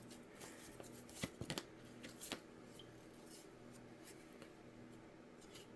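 Faint handling of tarot cards: a few soft snaps and rustles in the first two and a half seconds, then quiet room tone with a faint steady hum.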